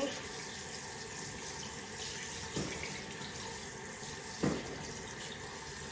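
Kitchen tap running steadily into a stainless steel sink while raw sardines are rinsed by hand in a bowl of water under it, with two brief bumps about halfway through and again a second or two later.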